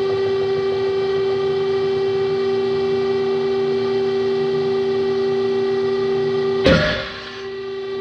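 Steady whine of the pull-test rig's motor as it loads an old, roughly 13 mm rope lanyard. Near the end comes a single loud, sharp snap: the rope breaking at its alpine butterfly knot at about 2,800 pounds. The whine carries on, quieter, after the break.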